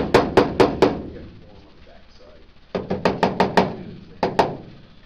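Hammer blows on aluminium sheet metal, struck quickly at about three to four a second. A run of blows is followed by a pause of about two seconds, then another run and two more blows.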